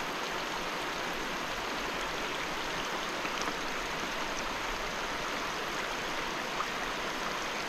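Shallow river riffle running over stones: a steady rushing of water.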